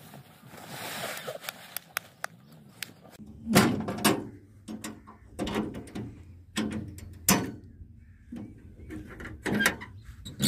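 A rustle at first, probably the tarpaulin being handled. Then, from about three seconds in, a steel hand cart rattles over rough sandy ground while it is pushed, its metal frame knocking and clanking about once a second over a low rumble.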